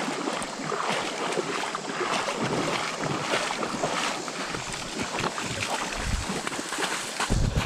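Wading footsteps splashing through shallow creek water and onto the dirt bank, with wind buffeting the microphone in a few low thumps near the end.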